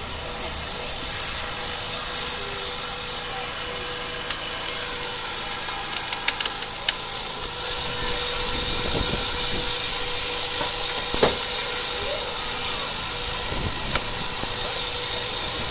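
An engine running steadily under a constant hiss, with a few sharp cracks and snaps from the wrecked car's body and broken windscreen as it is cut open for a rescue, the loudest about eleven seconds in.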